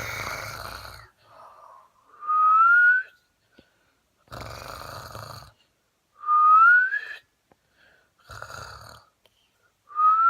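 Snoring in a repeating cycle about every four seconds: a rattling snore on the in-breath, then a short rising whistle on the out-breath, which is the loudest part. Three cycles.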